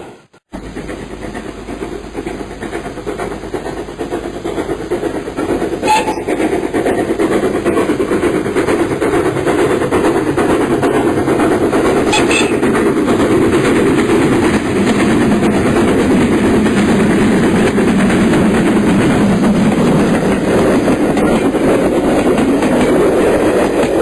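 A train hauled by a GWR Castle class steam locomotive running on the rails, heard as a dense rushing rumble. It builds over the first dozen seconds or so and then holds steady, with two faint clicks about six and twelve seconds in.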